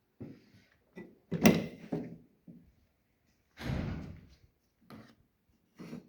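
A series of irregular knocks and thuds, the loudest about one and a half seconds in, with a longer rustling scrape around four seconds in.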